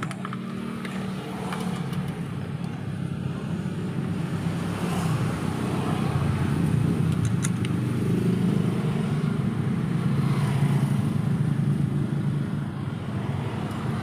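A motor vehicle engine running steadily, growing louder a few seconds in and easing off near the end.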